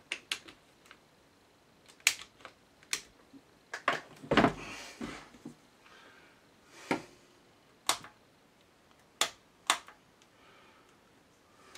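Scattered sharp clicks and knocks from hands handling a power lead and hardware on a workbench, about a dozen in all, with a heavier low thump about four seconds in.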